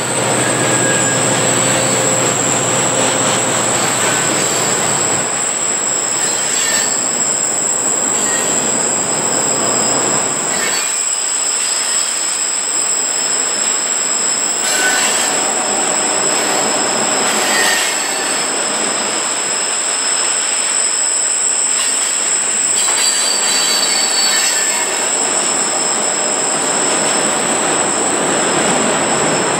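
Flatcars loaded with continuous welded rail rolling past, with a steady high-pitched squeal over the rumble of the cars. The deep rumble thins out about ten seconds in.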